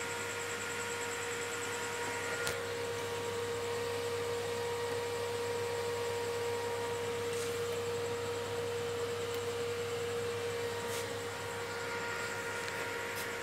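Steady electrical hum with a constant high tone over it, and a few faint clicks about two and a half seconds in and again near the end.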